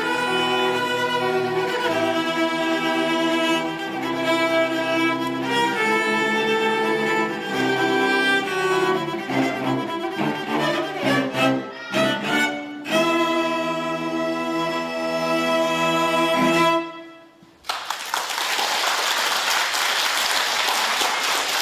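Elementary school string orchestra, violins and cellos, playing a piece with long held chords and a choppier passage of short notes in the middle. The music ends about 17 seconds in, and after a short pause the audience applauds.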